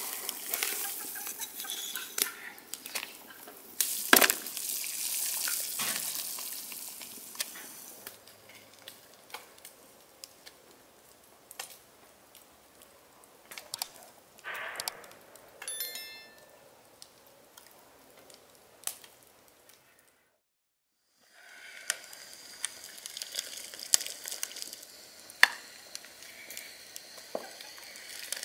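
A large pot of water boiling over a wood fire, with a steady hiss and scattered clinks and knocks of a metal skimmer against the pot and an enamel plate. The sound cuts to silence for about a second two-thirds of the way through.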